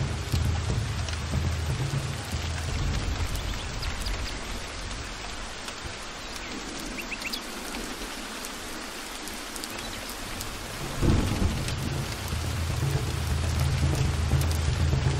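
Heavy rain falling steadily, with thunder rumbling underneath. The low rumble dies away about five seconds in, then a sudden loud clap comes about eleven seconds in and the rumbling builds again.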